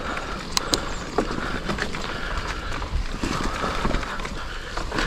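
Mountain bike rolling over a dry-leaf-covered dirt singletrack, heard from a handlebar-mounted camera: steady tyre noise with irregular knocks and rattles from the bike over bumps, and a few sharp clicks in the first second.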